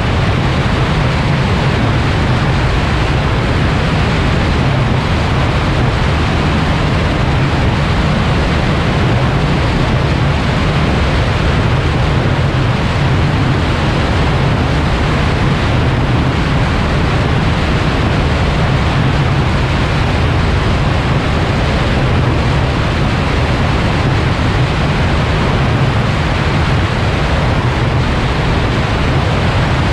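Cessna 172 in cruise: a steady low engine-and-propeller drone under loud, even wind rush over a wing-mounted camera, unchanging throughout.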